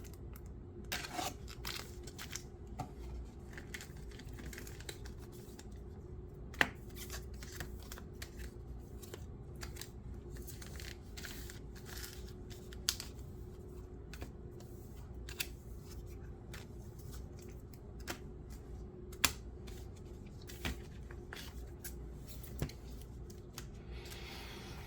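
Hands unpacking a cardboard trading-card box: rustling and scraping of packaging with scattered sharp clicks and taps, over a faint steady hum.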